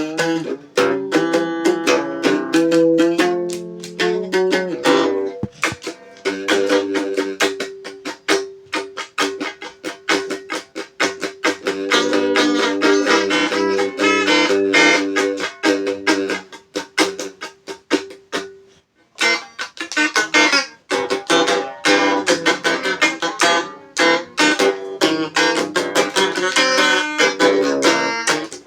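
Guitar played as an instrumental piece with no singing: a fast run of picked notes over held lower notes. There is a brief pause about two-thirds of the way through.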